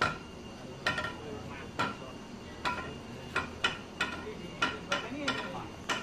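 Irregular sharp metallic knocks, roughly two a second, each ringing briefly, like a hammer striking metal.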